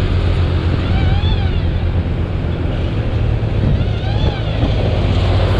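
Motorcycle engine running steadily while riding, under a steady hiss of wind and road. Twice, about a second in and about four seconds in, a short tone rises and falls above it.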